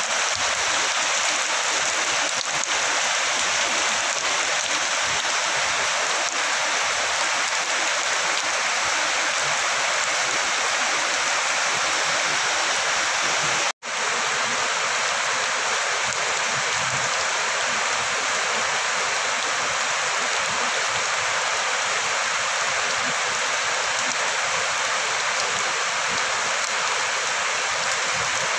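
Heavy rain falling steadily, a dense even hiss that cuts out for an instant about halfway through.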